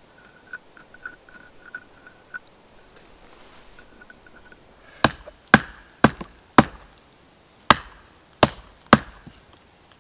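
A hatchet chopping into a stick laid on a log: seven sharp strikes of steel on wood, starting about halfway through and coming roughly every half-second with a short gap in the middle.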